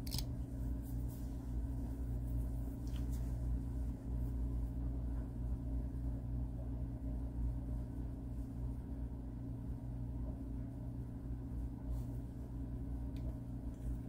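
Small electric motor of a rotating display turntable running, a steady low hum as it slowly turns the model car.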